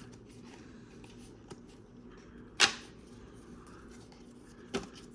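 Trading cards being handled and flipped through in a quiet room, with one sharp click about two and a half seconds in and a softer one near the end.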